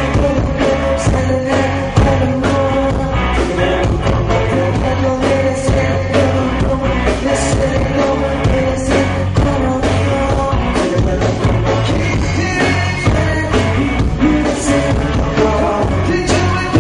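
Rock-style music with a steady drum beat and a singing voice.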